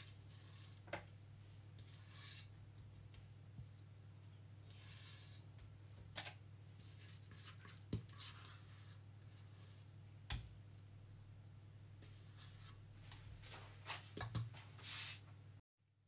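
Thick cookie-dough-like blondie batter being scraped and scooped out of a stainless steel mixing bowl into a paper-lined baking tray: soft scrapes and rubs with a few light knocks, over a steady low hum.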